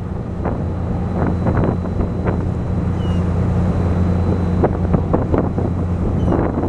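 A boat's engine running steadily at cruising speed, with gusts of wind buffeting the microphone over it.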